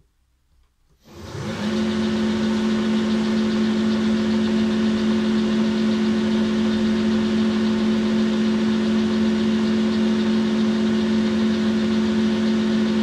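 A Boxford centre lathe starting up about a second in, quickly spinning up to a steady motor-and-drive whine, then running at constant speed while a cloth is held against the turning workpiece to buff it.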